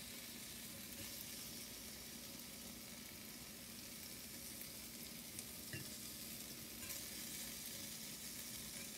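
Asparagus and cherry tomatoes sizzling steadily in a hot cast-iron skillet, with a few light clinks of a fork against the pan about five to seven seconds in.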